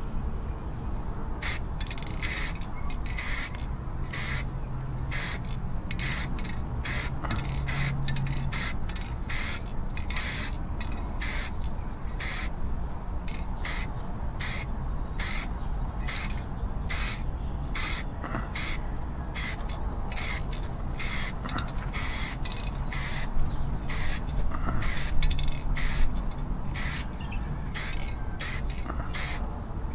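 Black paint being sprayed onto a boat in short hissing bursts, roughly two a second, starting about a second and a half in, over a steady low rumble.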